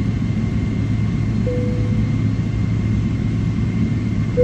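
Steady low cabin rumble of a Boeing 777-300ER on the ground, its GE90-115B engines at idle, under a constant low hum. A short single tone sounds about a second and a half in and fades quickly.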